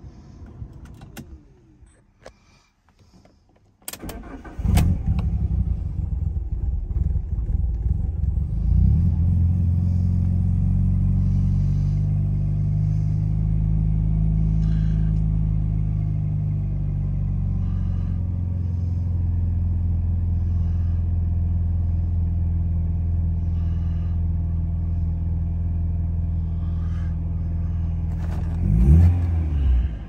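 Alfa Romeo engine cold-started: after a few quiet seconds it cranks and catches about four seconds in, runs unevenly for a few seconds, then settles into a steady fast idle, with a short rev blip near the end. The unevenness is the first-start stumble that clears within moments, which the owner suspects is the idle control valve rather than the MAF sensor.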